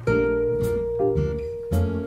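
Background music: a plucked acoustic guitar playing a tune, with new notes struck about every half second over a held note.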